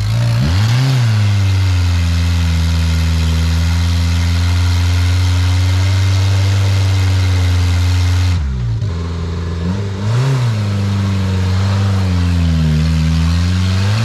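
4WD engine revving hard under load on a steep climb. It rises and falls at first, holds high revs for several seconds, drops briefly about two-thirds of the way through, then revs up and down again.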